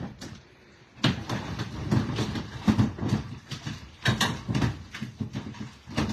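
Live carp thrashing in a plastic tub: a rapid, irregular run of thumps and splashes against the tub walls, starting about a second in.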